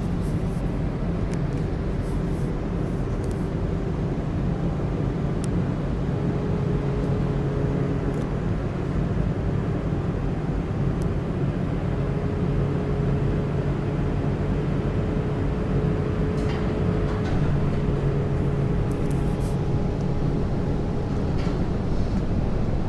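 Konstal 105Na tram heard from inside the passenger compartment while running along the track: a steady rumble of wheels on rails with a low hum from the DC traction motors. A few faint clicks and squeaks come through now and then.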